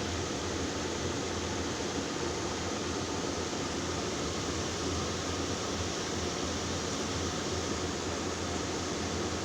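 Steady even hiss with a low hum underneath, from a running electric fan, unchanging throughout.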